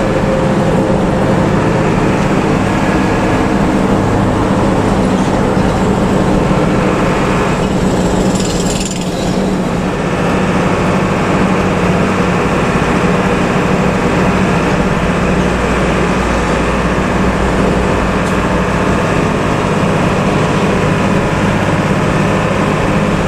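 Intercity bus's diesel engine running steadily under way, heard from inside the passenger cabin. The sound dips briefly about nine seconds in.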